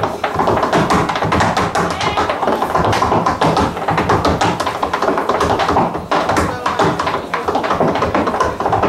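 Tap shoes striking a wooden stage floor: a solo tap dancer hammering out dense, rapid rhythms of sharp taps.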